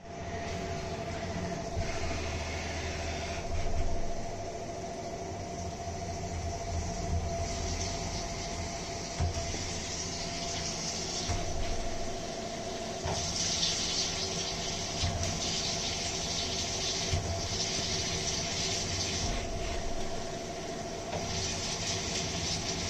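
CNC vertical mill drilling through a block of aluminium with a large drill, under flood coolant. The spindle whines at a steady pitch over a low rumble, and the coolant spray hisses and splashes, swelling and easing every few seconds.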